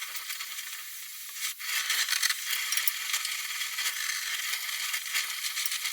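Gas torch hissing steadily as it heats the bumper's bent steel tubing, held under load in a press so the bend can relax.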